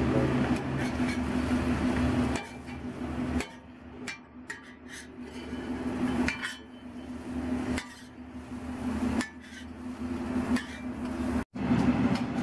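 Metal spatulas clicking, knocking and scraping on a steel flat-top griddle as a fried egg is folded over a beef patty: a string of sharp, irregular metal knocks. A steady low hum for the first two seconds or so.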